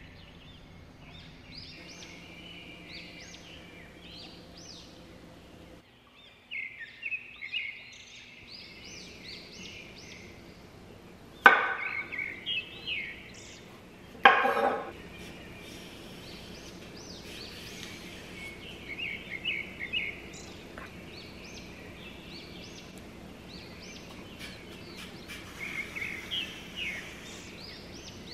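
A chef's knife chops twice through a cucumber onto a wooden cutting board, about three seconds apart, with birds chirping throughout.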